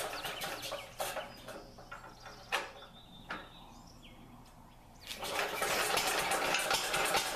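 Standard Monarch garden tractor's single-cylinder engine running on a cold start, then dying away about a second in. After a lull with a couple of sharp clicks, it fires up again about five seconds in and keeps running.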